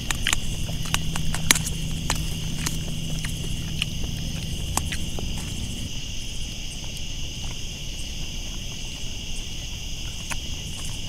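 Steady chorus of crickets and other insects chirring, with scattered small clicks and ticks. A faint low hum runs under it through the first half.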